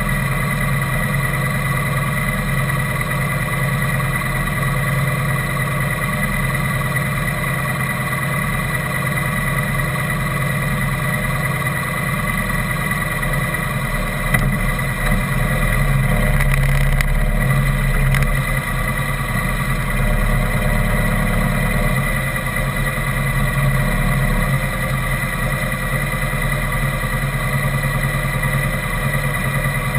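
Vehicle engine idling steadily, getting a little louder for a few seconds about halfway through as the vehicle creeps forward.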